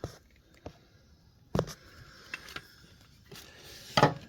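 A few scattered knocks and clicks with light scraping: a tool being handled and fitted to the spare-tyre lowering mechanism under the back of the car. The loudest knock comes near the end.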